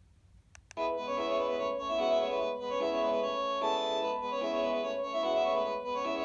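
Panasonic KX-TGH720 cordless phone playing an electronic ringtone melody, a quick run of organ-like notes, through its speaker. The ringtone starts just under a second in, right after a short click.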